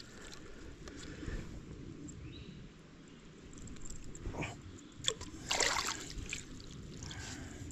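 Small creek water trickling steadily, with a few short splashes a little past halfway.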